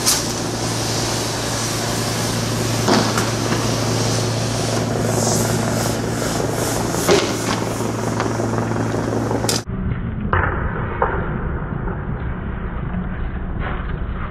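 Street riot with tear gas: sharp bangs a few seconds apart, typical of tear gas canisters being fired or landing, over a steady low hum and hiss. About ten seconds in the sound cuts to a duller recording with scattered knocks.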